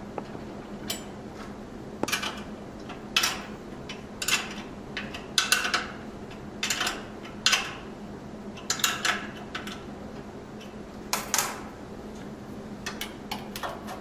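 A wrench working the bolts of a DP transmitter's steel pipe-mount bracket: irregular metallic clinks and short scrapes, about fifteen in all, some in quick pairs. A steady low hum runs underneath.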